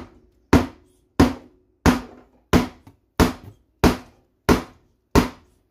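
A hammer striking the side of a wooden kitchen wall cabinet in eight evenly spaced blows, about one and a half a second, each with a short ringing tail. The blows are knocking loose a cabinet that is still held to the wall after its screws are out.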